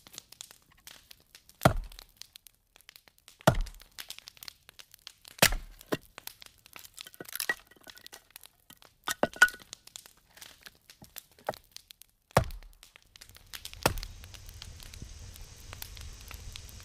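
A series of sharp cracks and snaps, a few loud ones spaced about two seconds apart and many small clicks between them. From about 13 s in comes the steady low rumble and hiss of a wood fire burning in a fireplace, with one loud crack just after it starts.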